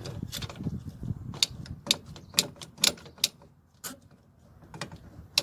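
Sharp metallic clicks and clinks at irregular intervals, about a dozen, from brake hardware and tools being handled during a brake job, with a low rumbling handling noise in the first second or so.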